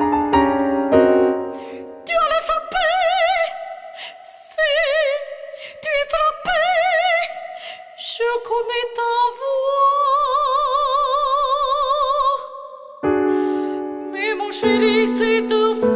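Solo operatic soprano singing with wide vibrato, ending her phrase on a long held high note, over piano accompaniment that plays chords at the start and again near the end.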